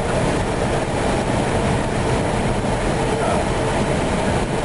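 Steady rush of airflow and engine noise inside the cockpit of an Airbus A319 on final approach.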